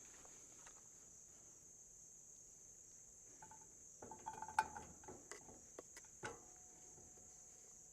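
Faint, steady, high-pitched chirring of insects, with a handful of light clicks and knocks from handling gear a few seconds in.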